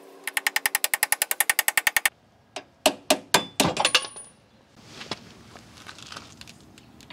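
A punch being driven against a rusted strut mounting bolt: a rapid run of ringing metal-on-metal strikes, about ten a second for nearly two seconds, then several separate sharp knocks and clinks.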